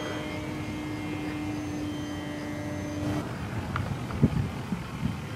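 RC model airplane's propeller motor running overhead with a steady whine, which cuts off suddenly about three seconds in. A low rumbling noise with a few short thumps runs underneath.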